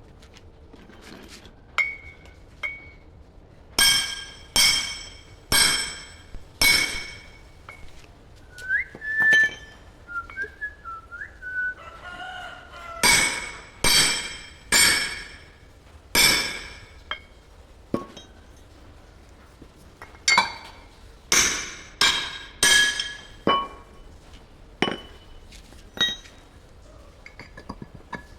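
Hammer blows on steel, each strike ringing out, in runs of several strikes about a second apart with pauses between.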